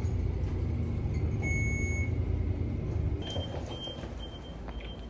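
City bus running with a steady low engine rumble, with a brief high tone about a second and a half in. About three seconds in the rumble eases as the bus stops, and a series of short high beeps sounds, about two a second, as the doors open.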